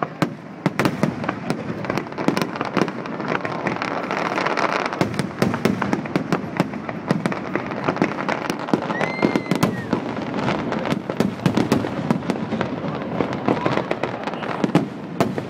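A fireworks display going off in quick succession: rapid, overlapping bangs and reports with no let-up, and a short whistle about nine seconds in.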